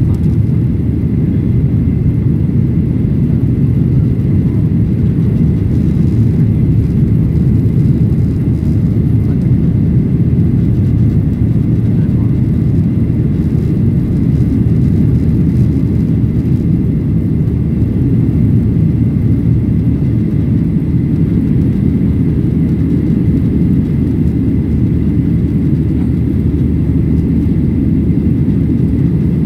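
Steady cabin noise of a Boeing 737-800 climbing after takeoff, heard from a window seat by the wing: a loud, even low rumble of its CFM56-7B turbofan engines and rushing air, with a faint high steady whine above it.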